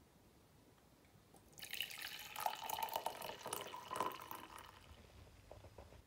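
Water poured from an electric kettle into a ceramic mug, starting about a second and a half in. It splashes for about three seconds, then tails off in a few drips.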